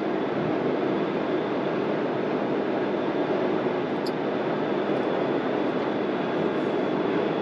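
Steady cab noise of a 2020 Mitsubishi Fuso 4x4 truck with a 6-litre V8 cruising on a paved road: engine hum mixed with road and wind noise, heard from inside the cab.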